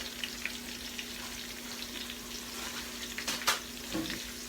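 Chicken pieces frying in a skillet: a steady sizzle with small crackling pops, and two sharp knocks about three seconds in.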